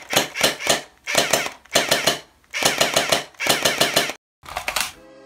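Battery-powered fully automatic toy gel-ball blaster, modelled on a Desert Eagle, firing in about six short rapid bursts of several clattering shots each. Music starts near the end.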